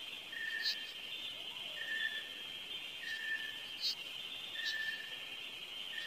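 Steady insect chorus, a continuous high buzz, with a short single-pitch note repeating about every one and a half seconds and a few sharp high chirps.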